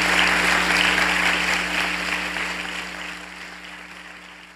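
Audience applauding, the clapping fading away steadily, over a low electrical hum.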